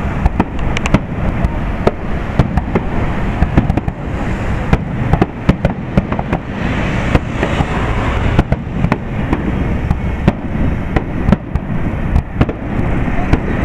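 Aerial fireworks display: shells bursting one after another in quick, irregular succession, many sharp bangs over a continuous low rumble of further explosions.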